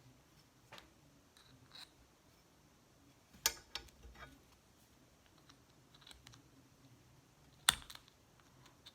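Scattered light clicks and taps of small objects being handled on a tabletop, with a sharper click about three-quarters of the way through.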